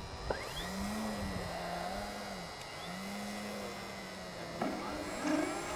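Radio-controlled model aeroplane flying overhead: the steady drone of its small engine and propeller, rising and falling gently in pitch several times as it manoeuvres.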